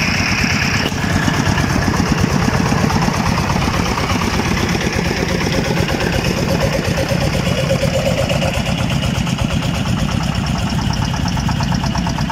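Several small single-cylinder diesel engines driving water pumps, running steadily with a rapid low chugging.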